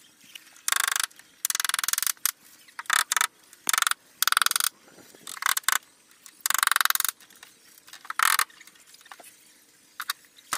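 Hand-tool scraping strokes on wood, about ten short rasping strokes at an uneven pace, a couple of them longer, then a few small clicks near the end.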